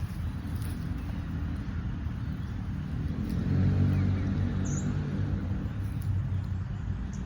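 Low, steady hum of a vehicle engine, swelling louder about halfway through, with a few faint bird chirps over it.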